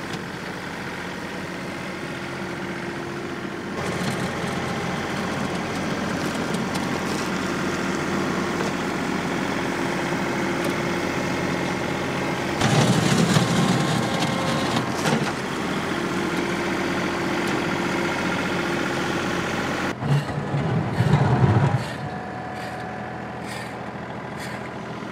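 John Deere 2038R compact tractor's diesel engine running steadily while the front loader works fill dirt. The engine gets louder about four seconds in, with two short, louder, rougher passages around halfway and near the end.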